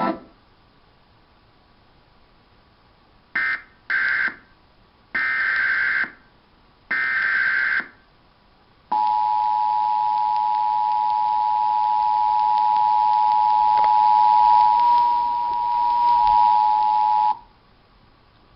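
Emergency Alert System SAME header: four short buzzy data bursts, the first two very brief. About nine seconds in, the EAS two-tone attention signal (853 Hz and 960 Hz together) sounds steadily for about eight and a half seconds, then cuts off. Together they open a severe thunderstorm alert.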